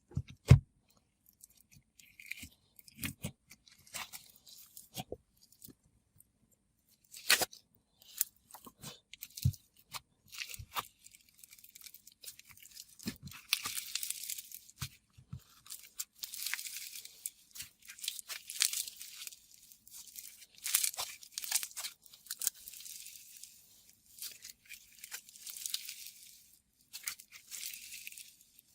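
Herbal Jelly Shaved Ice slime being worked by hand, making crunchy crackling and popping sounds. There are scattered pops at first, and the crackling grows denser and steadier from about halfway through.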